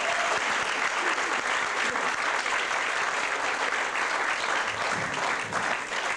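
Audience applauding: many people clapping at once, steady and dense.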